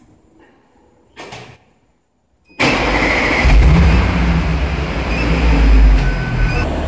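A 2015 Audi SQ5's 3.0-litre V6 on its stock factory exhaust starting up. It catches suddenly about two and a half seconds in, flares up, then settles into a loud, steady idle, swelling again briefly near the end.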